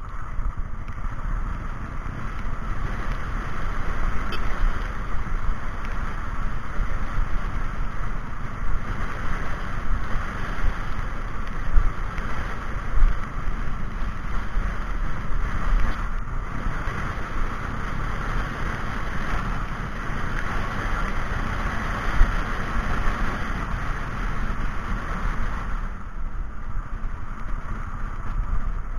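Steady wind and road noise with engine rumble, picked up by an action camera riding on a moving vehicle in traffic.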